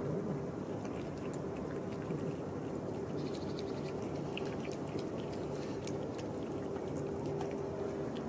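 Two cats eating dry kibble from a plastic tub: small crunching clicks, thicker from about three seconds in, over a steady low background hum.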